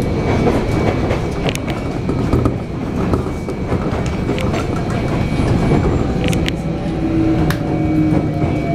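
Sotetsu 8000 series electric train running, heard from inside the car: a steady rumble of wheels on rail with sharp clicks over rail joints. In the last few seconds a faint whine falls slowly in pitch, the sound of its Hitachi IGBT-VVVF inverter.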